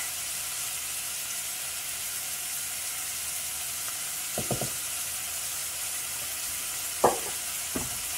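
Chicken drumsticks sizzling steadily as they brown in a frying pan. Three quick light taps come about halfway through, and a sharper knock near the end.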